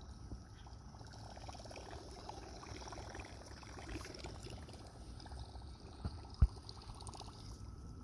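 Faint splashing and gurgling of water as a line of lures is reeled in across the surface, with one sharp knock about six seconds in.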